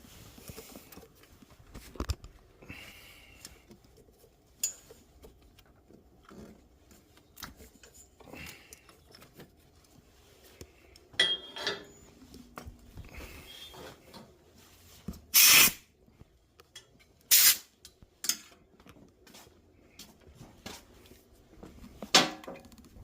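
Two short blasts of compressed air from an air-compressor blow gun, about a second and a half apart, blowing dirt out of the spark plug wells before the plugs come out. Scattered clicks and clatter of tools being handled come before and after.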